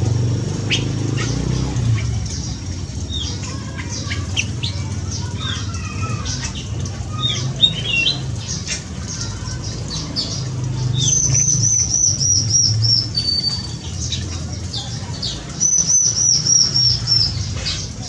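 Mixed songbirds calling in an aviary: scattered short high chirps and, twice in the second half, a quick run of about eight high whistled notes stepping slightly down in pitch, over a steady low rumble.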